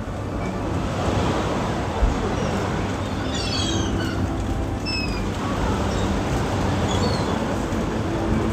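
Steady wind noise over the microphone with the sea beneath, and a few short high gull calls: a cluster about three and a half seconds in and single calls around five and seven seconds.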